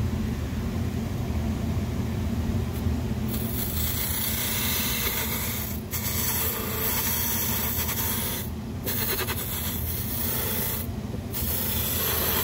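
Palmgren variable-speed bench buffer running at about 1800 RPM with a steady hum. About three seconds in, a metal buffing-wheel rake pressed against the spinning cotton buffing wheel sets up a harsh, hissing rasp as it tears caked polishing compound and fibres off the wheel. The rasp breaks off briefly three times as the rake is eased away.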